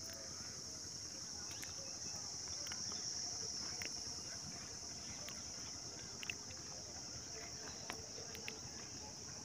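Crickets chirring in a steady, high-pitched chorus, with a few faint clicks scattered through.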